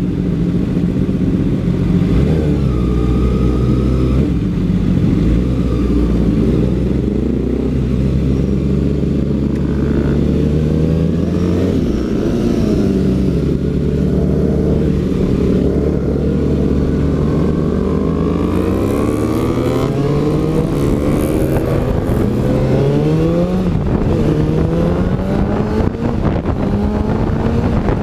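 The inline-four engine of a Kawasaki ZX6R-636 running at low revs while rolling along, then revving up in repeated rising sweeps through the gears for the last third.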